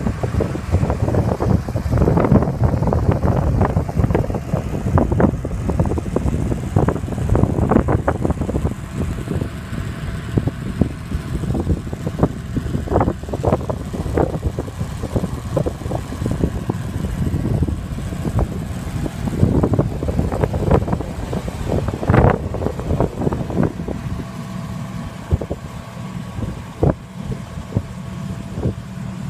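Straight-piped 4.7-litre V8 of a 2005 Dodge Ram pickup idling with a steady low rumble, with irregular gusts of wind buffeting the microphone.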